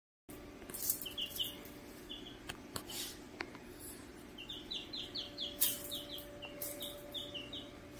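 Two Wyandotte chicks peeping, short high falling peeps in quick strings: a few in the first couple of seconds, then a long unbroken run from about four and a half seconds in. Sharp scuffs and clicks break in now and then, the loudest a little after five and a half seconds, as the dog scrabbles on the tile floor.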